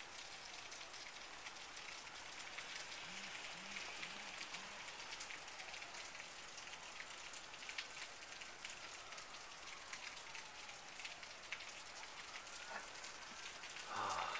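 Steady rain falling, with many individual drops ticking and pattering on surfaces close to the microphone. A faint tone rises and falls slowly in the background, and a brief louder sound comes near the end.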